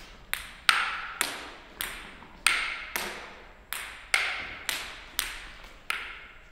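A ping-pong ball knocked repeatedly with a paddle in a wall-ball warm-up: a steady run of sharp clicks, about two a second, each ringing out in the echoing hall.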